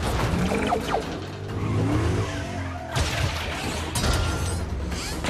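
Muscle car engine revving, rising and falling, with its tyres spinning and squealing in a burnout, over film score music. There is a sharp impact about three seconds in.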